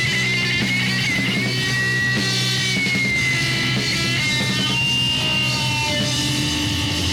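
Loud, distorted noise rock from a vinyl record: electric guitar holding long, wavering high tones over steady low bass notes.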